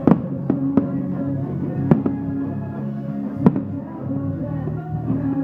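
Fireworks going off: about five sharp bangs, the loudest just at the start and another about three and a half seconds in, over music with long held tones.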